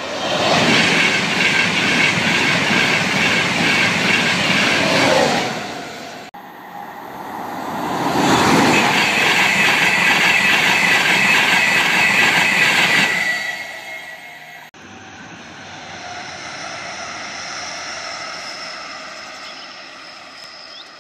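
Intercity 225 trains, a Class 91 electric locomotive with its coaches, passing close by at speed: loud steel wheel-on-rail noise, heard as two passes that each cut off sharply. Then a quieter, more distant First Hull Trains Class 180 diesel unit passing.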